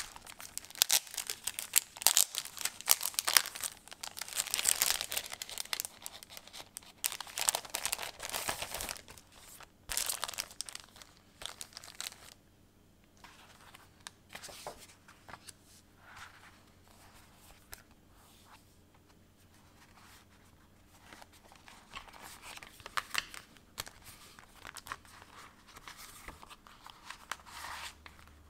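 Clear plastic sleeve inserts and paper sheets crinkling and rustling as they are handled and fitted into a traveler's notebook. Busy crinkling for about the first twelve seconds, then quieter, scattered rustles.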